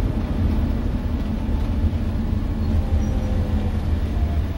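Motorhome driving, heard inside the cab: a steady low rumble of engine and road noise, with a faint whine that slowly falls in pitch near the end.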